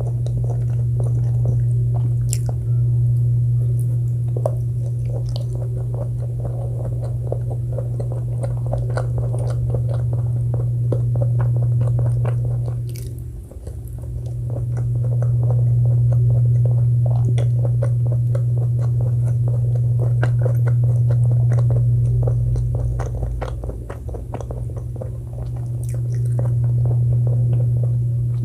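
Close-miked chewing and biting of food, with many small crisp crackles, over a steady low hum that dips briefly about halfway through.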